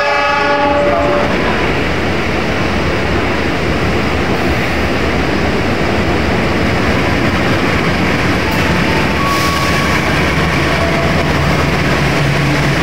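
Stainless-steel intercity passenger coaches rolling past close by: a steady rush and rumble of wheels on rail. A train horn is still sounding at the start and stops about a second in.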